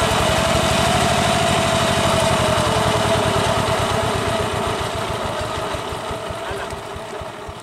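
A small engine running steadily with a fast, even beat, fading gradually over the second half.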